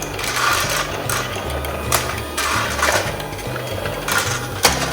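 Battery motor of a Casdon toy Dyson Ball vacuum cleaner whirring in spells, with a couple of sharp knocks, about two seconds in and near the end. A background music bass line runs underneath.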